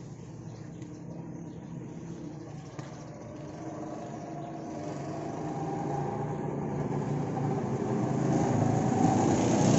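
Go-kart engines running and growing steadily louder as the karts approach along the track.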